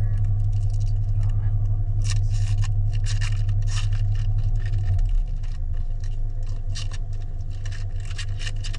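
Small plastic toy pieces and packaging being handled, with repeated short scrapes and clicks, over a steady low rumble that eases slightly about five seconds in.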